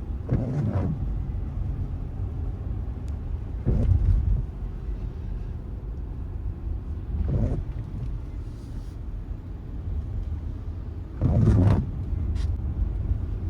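Windscreen wipers of a 2024 Mercedes-Benz GLE squeaking across the glass, four times at roughly three-and-a-half-second intervals, over steady road rumble inside the cabin. It is a recurring wiper squeak that four workshop repairs have not cured.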